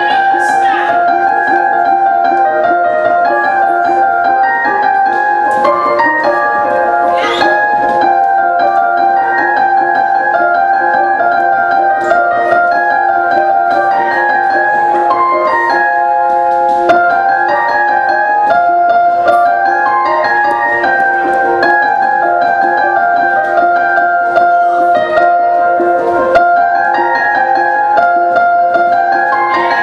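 Piano music: a calm, repeating melody of held notes.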